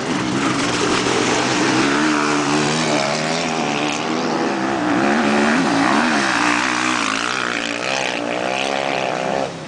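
A car's engine revving hard, its pitch rising and falling again and again through the gears as it passes close by. The sound drops away just before the end.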